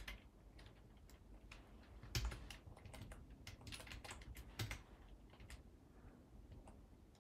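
Computer keyboard typing: light, irregular keystrokes, with two louder clacks about two and four and a half seconds in.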